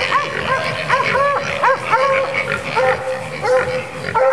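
Several hog-hunting bay dogs barking without pause, short overlapping barks at two or more pitches, three or four a second, as they hold hogs at bay.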